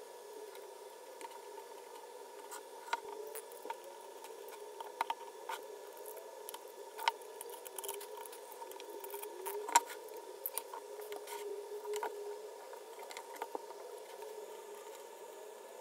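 Irregular light clicks and taps of small parts and tools being handled during the build of a PVC-and-wood mini PC case, the sharpest about ten seconds in, over a faint steady hum.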